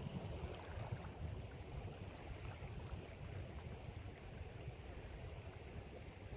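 Strong wind buffeting the camera's microphone: an uneven low rumble with a fainter hiss above it.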